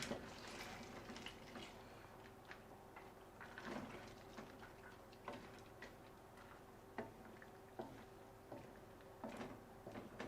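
Faint scattered clicks and knocks of kitchen utensils against a cooking pot, over a faint steady hum.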